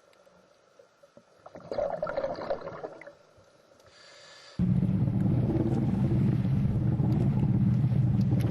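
A boat's motor running steadily, starting abruptly about halfway through, after a brief burst of splashing-like noise.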